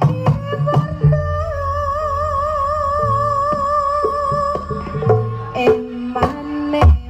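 Javanese jaranan music: drum and gong strokes, with a long held, wavering melody note in the middle before the quick drumming resumes.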